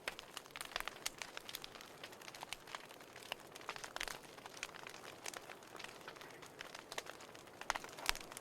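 Wood fire crackling in a fireplace: irregular snaps and pops over a faint hiss, a few sharper pops near the end.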